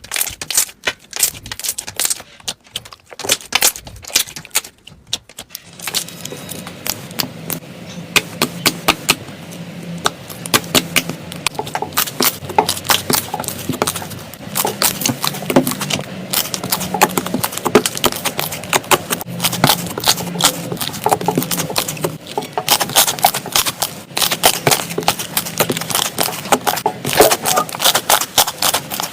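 Slime being squeezed, poked and stretched by hand, giving rapid, irregular sticky clicks and crackling pops throughout.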